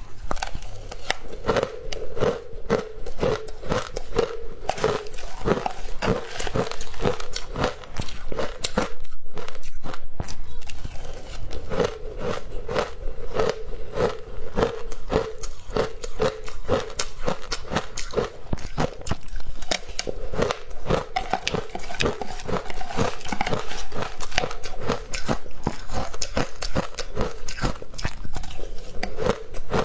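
Crisp crunching and chewing of frozen ice coated in matcha powder, bite after bite in a dense, steady run.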